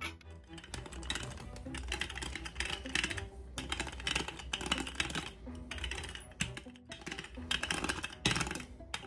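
Background music with a string of short scraping, rustling strokes from hands-on kitchen work with pie dough.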